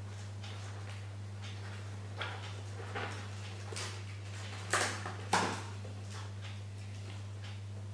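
Hands handling a scooter's cables and their plastic cable sleeve: a few short rustles and scrapes, the two loudest close together a little after halfway, over a steady low hum.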